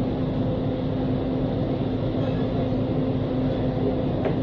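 Steady mechanical hum over a constant rumble, with one short click near the end.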